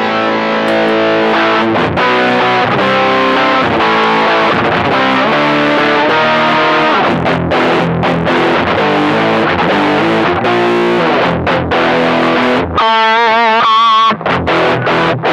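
Electric guitar played through a distortion pedal, with the octave pedal switched off: distorted chords and riffs, ending in a held single note with wide vibrato near the end.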